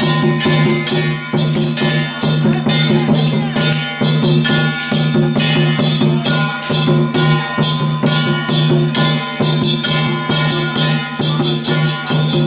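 Temple procession music: drum and metal percussion struck in a fast, steady rhythm of about five strikes a second, over a steady low droning tone.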